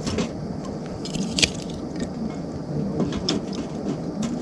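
Wood fire crackling in a small titanium wood stove, with scattered sharp pops, the loudest about a second and a half in.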